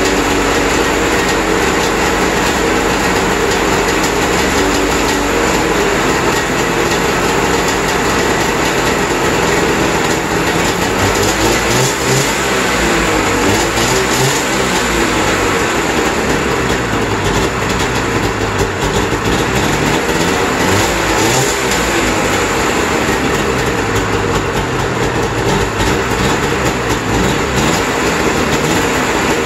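Arctic Cat Pantera 550 cc two-stroke twin snowmobile engine idling, its speed drifting a little up and down.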